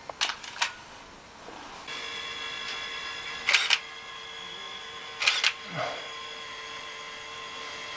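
Digital SLR camera shutter firing: a few quick light clicks at the start, then two louder shutter releases, the first about three and a half seconds in and the second nearly two seconds later. A steady held tone comes in about two seconds in and runs under them.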